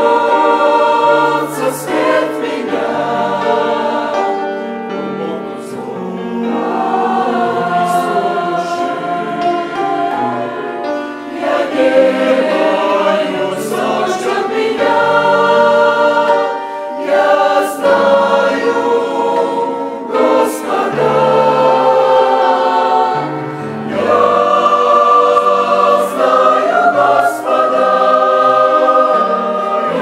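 Mixed church choir of men's and women's voices singing a Russian hymn in held chords, with short breaks between phrases every few seconds.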